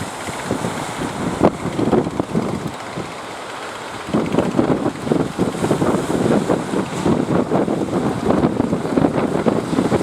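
Wind buffeting the microphone over the wash of sea surf, gusting harder from about four seconds in.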